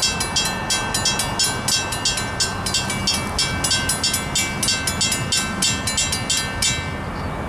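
Railroad grade-crossing warning bell ringing steadily at about four strikes a second. It stops about seven seconds in as the crossing signal shuts off.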